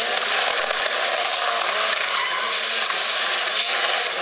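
Mitsubishi Lancer Evolution rally car heard at a distance, its engine revving faintly under a steady loud hiss as it slides through donuts.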